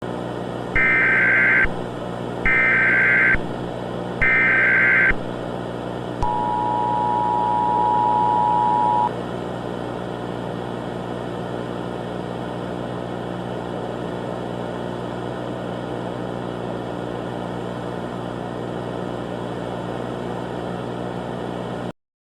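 Emergency Alert System broadcast: three short bursts of SAME digital header data about a second apart, then the two-tone EAS attention signal held for about three seconds. A steady electrical hum with hiss runs underneath and carries on after the tones stop, then cuts off just before the end.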